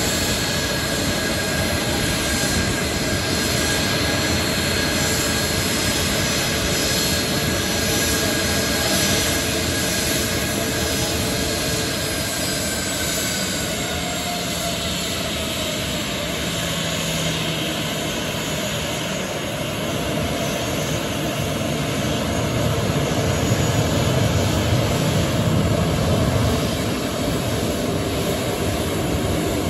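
Boeing P-8A Poseidon's twin CFM56 turbofan engines whining steadily at taxi power as the jet rolls along the ramp. A high whine slowly falls in pitch over the first dozen seconds, and the sound grows a little louder in the last third as the aircraft comes closer.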